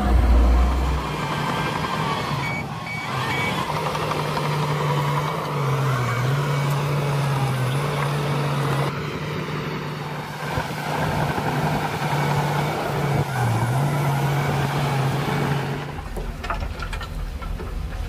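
Shantui DH17C2 crawler bulldozer's diesel engine running steadily under load as it pushes soil, its low hum dipping in pitch briefly twice. A short run of high beeps sounds a few seconds in, and near the end a deeper rumble of heavy machinery comes in.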